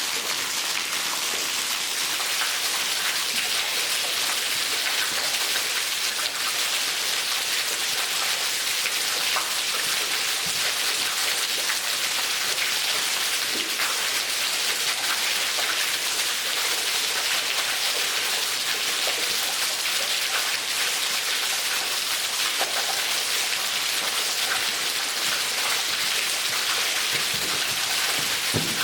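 Waterfall spilling through a hole in a sandstone overhang and splashing into a small pool below, with water trickling off the rock lip: a steady hiss of splashing water, like heavy rain.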